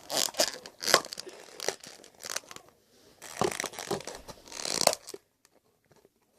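Small plastic containers and their caps being handled and pressed shut: a busy run of clicks and crinkling rustles that stops about five seconds in.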